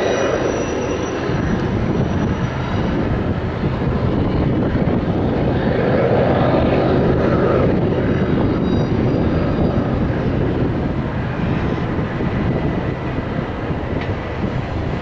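Double-stack container freight train rolling through curves, a steady rumble of wheels and cars, with faint high wheel squeals coming and going near the start and again about eight seconds in.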